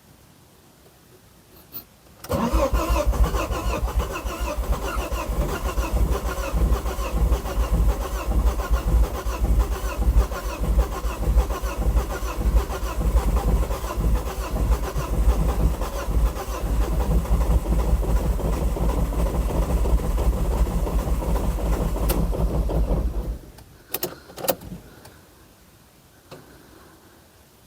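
A 2006 Ford Focus ST's 2.5-litre turbocharged five-cylinder engine being cranked by the starter for about twenty seconds without catching, then cut off, with a couple of clicks after. The car has not been started in over a year.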